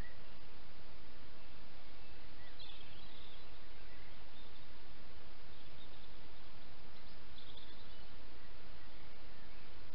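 Steady hiss from a trail camera's microphone, with faint woodland bird chirps a few times, clearest about three seconds in and again near eight seconds.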